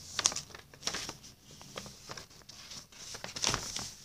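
A sheet of paper rustling and crackling in the hands while it is folded and creased into a paper airplane, with irregular sharp rustles, the loudest just after the start and again near the end.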